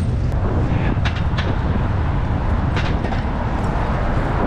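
Wind rushing over the microphone of a camera on a moving bicycle, mixed with road noise. There are a few short, sharp ticks or rattles about a second in and again near three seconds.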